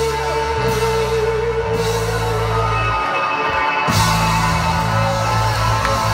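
Live rock band playing a slow song through a PA, with long held guitar notes over bass and drums. The bass and cymbals drop out for a moment about three seconds in, then the full band comes back in.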